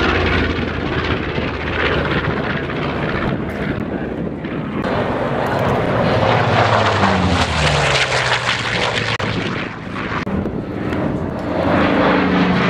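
Radial piston engines of WWII warbirds flying by. About halfway through, a plane makes a loud pass and its engine pitch falls as it goes by.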